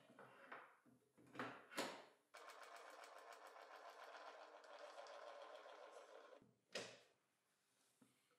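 Faint handling of a table saw's insert and riving knife: a few short scrapes and knocks, then about four seconds of fast, even mechanical ticking, and one more short scrape near the end.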